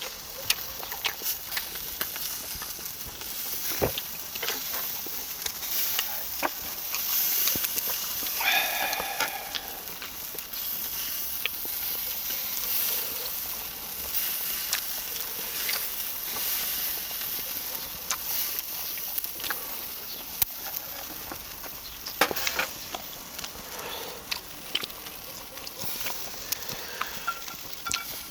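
Duck skewers sizzling over a charcoal fire, a steady hiss with frequent sharp crackles and pops. A short pitched sound comes about eight seconds in.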